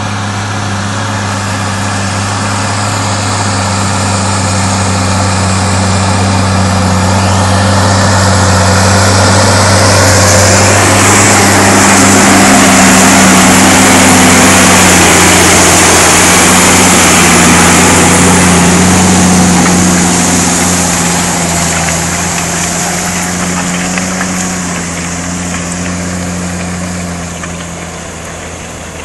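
New Holland TG285 tractor's six-cylinder diesel engine running steadily under load as it pulls a four-furrow reversible plough through the soil. It grows louder as the tractor passes close by in the middle, then fades as it pulls away.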